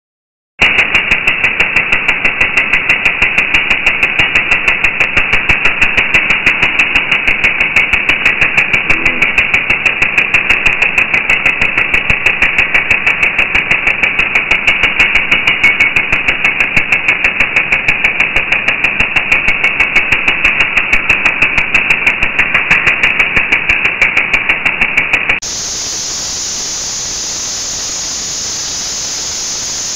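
Jackhammer hammering in rapid, even blows, starting just after the opening and cutting off abruptly about 25 seconds in. It gives way to a steady, quieter high-pitched hiss.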